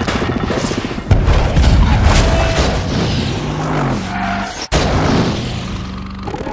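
Action-film soundtrack: loud booms over music, with a heavy hit about a second in. Near two-thirds through the sound briefly cuts out, then another hit comes in suddenly.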